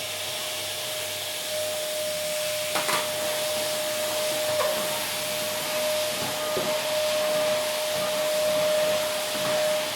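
Vacuum cleaner running steadily: an even hiss of rushing air with a steady motor whine, and a few brief knocks, the loudest about three seconds in.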